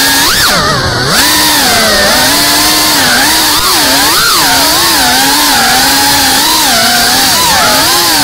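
FPV quadcopter's brushless motors and propellers buzzing loudly, heard from the drone itself, the pitch rising and falling constantly with the throttle. A quick sharp rise and drop comes about half a second in, and a long climb in pitch comes near the end.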